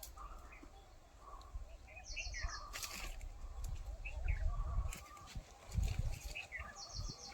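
Birds calling: a quick run of about five high notes, repeated about every four to five seconds, among scattered chirps, over a low rumble.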